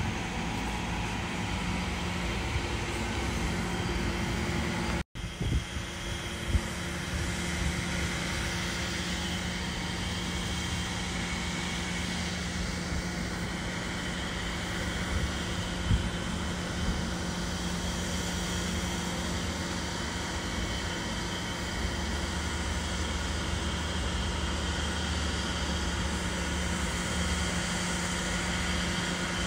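Steady low mechanical hum over a constant outdoor noise, with a sudden brief dropout about five seconds in and a few faint knocks.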